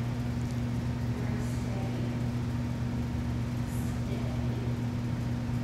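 Steady low hum at two fixed pitches, with no change in level, typical of a large hall's ventilation or electrical equipment.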